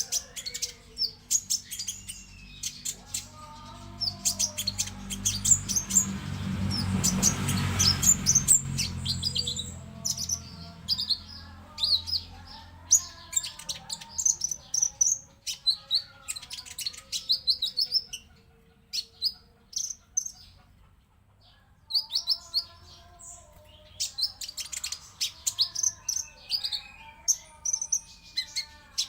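Konin songbird singing: rapid sharp, high chirps and quick trills mixed with lower warbled phrases, in fast bursts. A rushing noise swells under the song around six to nine seconds in, and the song thins out briefly about two-thirds of the way through.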